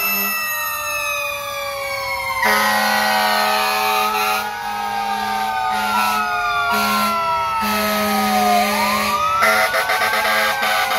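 Several fire-engine sirens sounding together as the trucks drive past: one winds slowly down in pitch while another wails slowly up and down. From about two and a half seconds in, a truck air horn adds long, low blasts that break off and restart several times.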